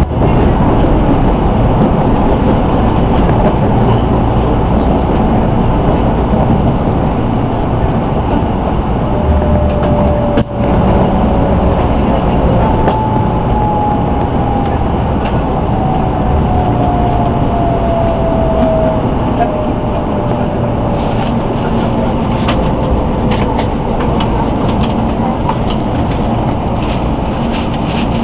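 Running noise of a 300-series Shinkansen heard from inside the car: a loud, steady rumble. Through the middle a faint whine slides down in pitch, typical of the train slowing. A few light ticks come near the end.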